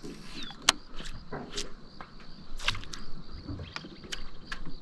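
Insects buzzing steadily in a high, thin tone, with a handful of sharp clicks and taps at irregular times.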